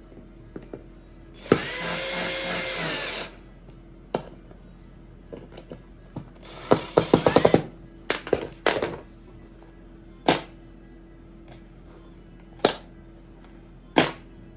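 A power drill runs for about two seconds, spinning up to a steady pitch and stopping. A few seconds later comes a quick run of clicks, followed by single sharp knocks spaced a second or two apart.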